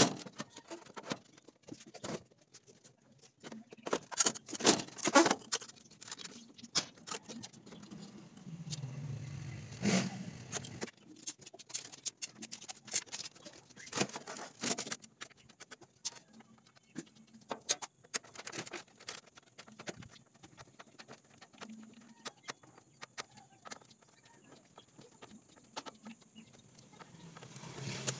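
Irregular knocks and clatter from a plastic speaker enclosure, a plywood baffle and a large woofer being handled and set in place, loudest in a burst of knocks about four to five seconds in, with a low rumble just before the middle.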